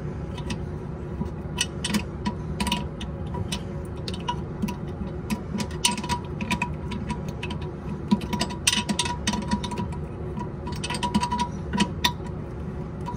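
Light metal clicks and clinks of a wrench, nuts and washers as the tank-to-bowl bolts are fitted and tightened under a toilet tank, scattered irregularly over a steady low hum.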